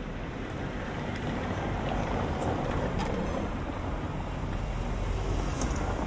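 Steady low rumble of city street ambience, with a few faint clicks.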